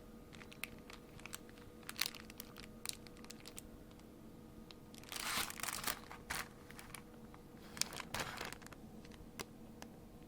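Packaging crinkling as it is handled, in two short bouts, with scattered small clicks and taps of light parts throughout.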